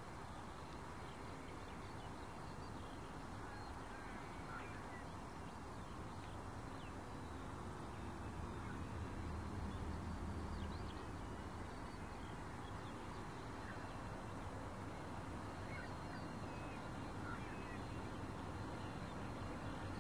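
Faint low rumble of distant approaching diesel locomotives, swelling about halfway through, with birds chirping now and then.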